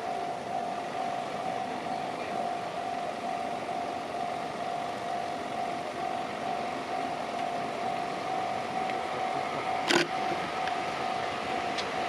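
Japanese level-crossing warning bell ringing steadily, warning of an approaching train on the Chuo Main Line. A sharp knock sounds once about ten seconds in.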